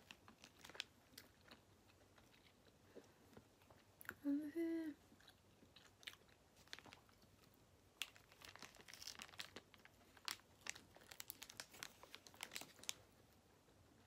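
Close-up chewing and biting of a soft, chewy-doughed wrapped pizza, with the paper wrapper crinkling in the hands. A brief hummed voice sound comes about four seconds in, and the small clicking eating noises grow dense in the second half.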